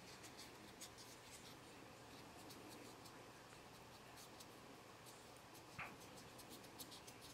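Faint, quick scratching strokes as a plastic model part's gate nub is scraped and smoothed by hand, with a short squeak about six seconds in.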